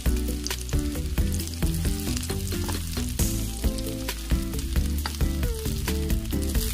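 Diced potatoes and chicken sautéing in an oiled pan, sizzling and crackling while a metal spoon stirs and scrapes the pan, under background music with a moving melody.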